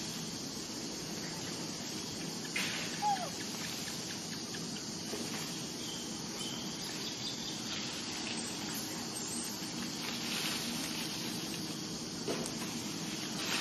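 Steady outdoor ambience with insects buzzing, and one short, falling squeak about three seconds in.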